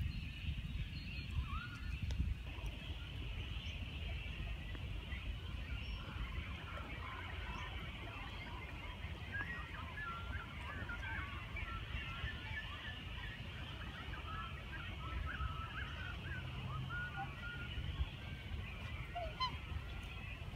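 Geese and black swans calling: many short honks and squeaky notes scattered throughout, over a steady low rumble.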